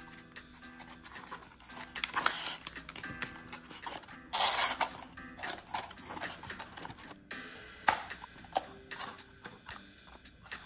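Corrugated cardboard being folded and handled: irregular rustling scrapes, the loudest about four seconds in, and a couple of sharp clicks near the end. Soft background music plays throughout.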